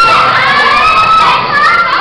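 A crowd shouting and screaming in high voices, several long cries overlapping.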